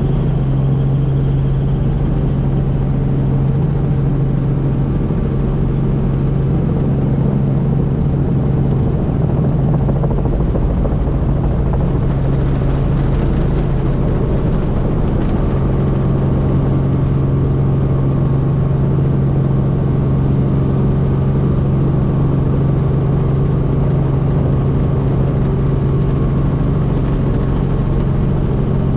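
Helicopter engine and rotor running steadily: a loud, even sound with a strong low hum.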